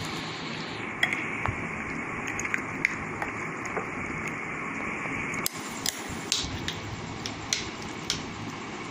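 Chicken pieces in a thick yoghurt and spice marinade being stirred in a glass bowl, with scattered light clicks of the spoon against the glass over a steady background hiss.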